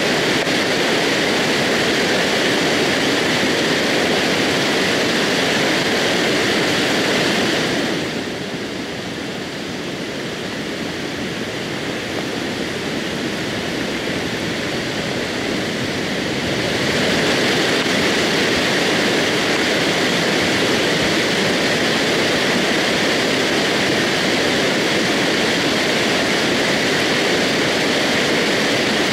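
Steady, loud rushing roar of a mudflow (debris flow) coming down a scree slope. It drops somewhat for several seconds about a third of the way in, then comes back at full strength.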